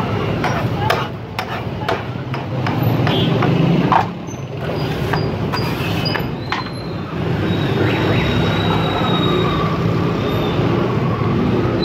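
Metal spatula knocking and scraping on a flat steel griddle: a run of sharp taps and scrapes over the first several seconds, against a steady background of street noise.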